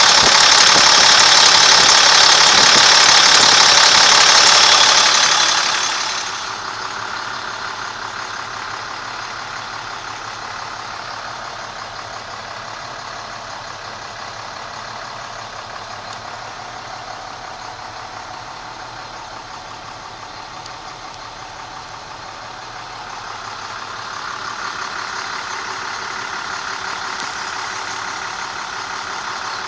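International DT466 inline-six diesel engine idling with its steady clatter, loud and close for about the first six seconds, then quieter and more muffled as heard from inside the truck's cab.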